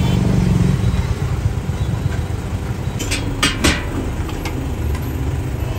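Busy street-food stall noise: a steady low rumble and hum, with three sharp metal clinks of utensils a little past the middle.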